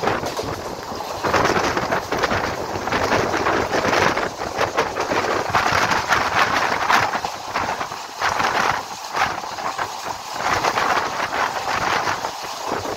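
Train running at speed, heard from its open door or window: wheels clattering over the rails in a rapid irregular stream of clicks, with rushing air.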